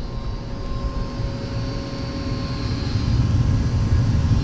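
Home furnace running: a steady low rumble from the burner and blower, with faint steady whining tones above it.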